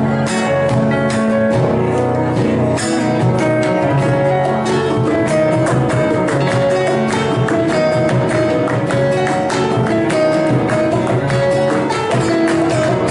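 Argentine folk group playing, with strummed acoustic guitars keeping a steady, even rhythm under held melodic notes.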